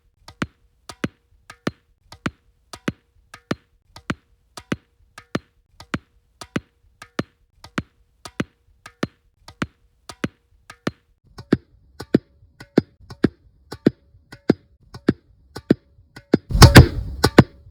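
Tennis ball dribbled on a hard floor: a steady rhythm of sharp bounces, about three a second, alternating louder and softer. About two-thirds of the way through the bounces get louder and fuller, and near the end a loud jumble of noise lasts about a second.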